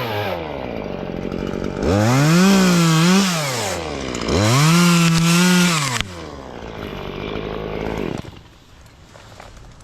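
Chainsaw running, revved up twice for about two seconds each and dropping back to idle in between and afterwards.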